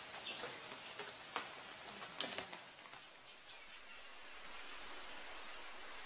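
Forest ambience with a few sharp clicks in the first half; from about three seconds in, a steady high-pitched insect drone takes over.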